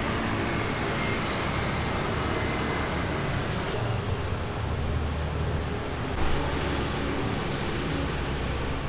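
Steady street traffic: motor vehicles running and passing, with a low engine rumble that is heaviest around the middle.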